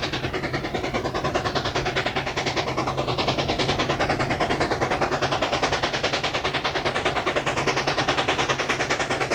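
Baldwin-built 2-8-2 narrow-gauge steam locomotive working, its exhaust beats coming in a quick, even rhythm that grows slightly louder.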